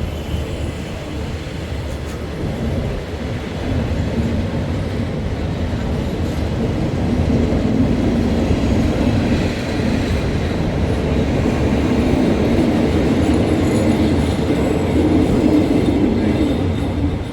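Train running along the track: a steady rumble of wheels and cars that grows louder a few seconds in, holds, and drops away near the end.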